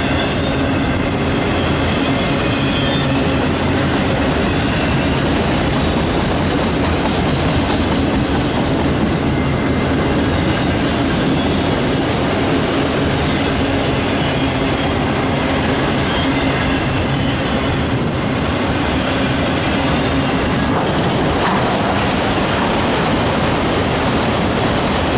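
Freight train of autorack cars rolling past close by: a steady, loud rumble and clatter of steel wheels on the rails, with a faint high wheel squeal in the first few seconds.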